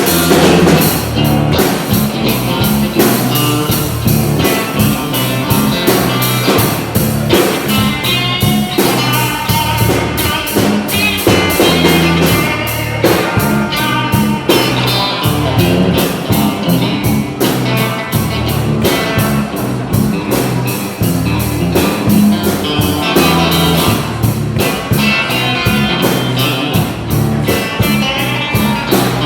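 Live blues-rock band playing an instrumental passage: electric guitar lead with wavering, bent notes over bass and a steady drum beat.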